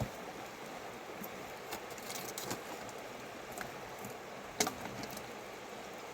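Steady rush of mountain river water, with scattered light clicks and taps; the sharpest comes about four and a half seconds in.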